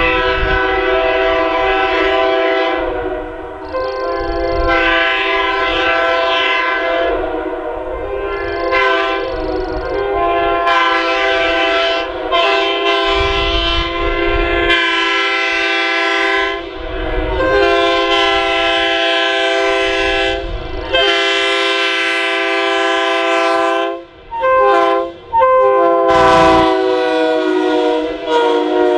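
Multi-chime locomotive air horn blown in long, loud, sustained blasts, several notes sounding together as a chord. The blasts break briefly a few times, with two quick stutters and a sagging pitch as the horn cuts out and restarts near the end.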